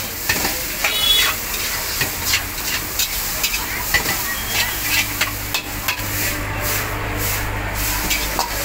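Egg noodles stir-frying in a wok over a gas flame: a steady sizzle, with a metal spatula scraping and clanking against the wok about twice a second.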